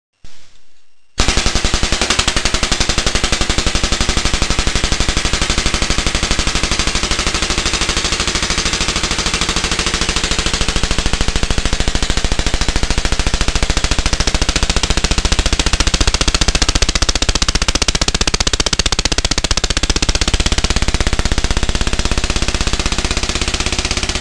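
Homemade automatic BB gun firing in one long, rapid, unbroken stream of shots, starting about a second in after a brief short sound.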